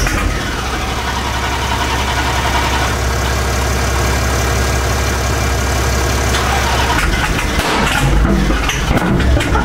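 Dodge Hellcat's supercharged 6.2-litre HEMI V8 idling loudly. It runs steadily, then turns more uneven for the last couple of seconds. The car is running again for the first time after sitting in storage.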